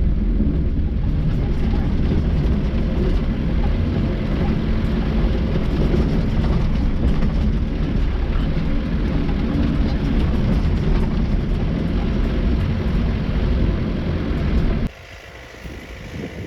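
Daihatsu Taft F50 4x4 driving off-road, a loud steady mix of engine and rough-ground noise. Near the end it drops suddenly to a much quieter hum.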